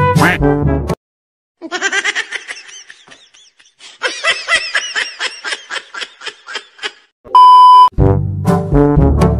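Brass-led background music cuts off about a second in, followed by high-pitched laughter sound effects in quick repeated bursts. A loud, steady, half-second beep like a censor bleep sounds near the end, and the brass music starts again.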